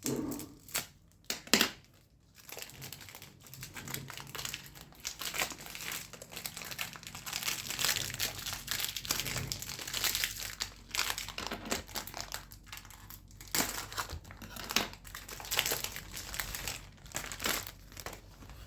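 Plastic wrapping being torn and crumpled off a small product box, with a few sharp rips in the first couple of seconds and then a long run of crinkling.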